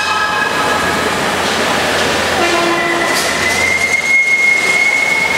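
5-inch gauge live-steam model trains sounding their whistles: a chord of whistle tones dies away in the first second, a short lower toot sounds halfway, and a long high-pitched tone holds steady from about three seconds in, over a constant hum of a busy hall.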